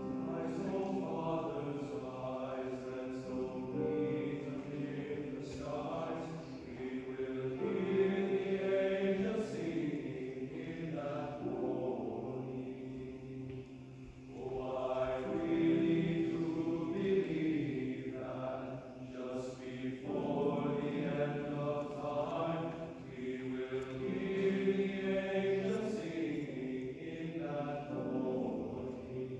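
Men's choir singing slow, sustained low chords in long phrases, with a short breath between phrases about 14 seconds in.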